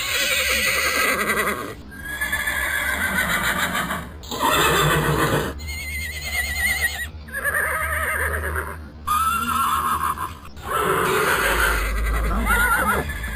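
A horse neighing and whinnying over and over, in a string of separate calls with abrupt breaks between them, the pitch quavering through each call and one rising call near the end.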